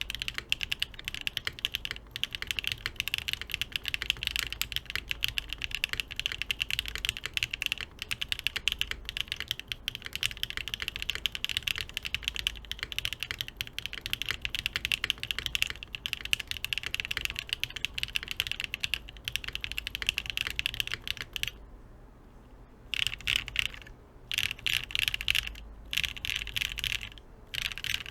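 Fast, continuous typing on a Frog TKL mechanical keyboard with lubed Sillyworks Hyacinth v2u switches, a carbon-fibre plate and ABS keycaps, recorded through a Blue Yeti microphone. The keystrokes run densely, with a pause of about a second and a half some 22 seconds in and a couple of short breaks near the end.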